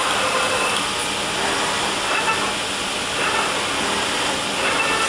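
Lectra CNC fabric cutting machine running: a steady rushing hiss with faint whining tones that rise and fade as the cutting head travels across the table.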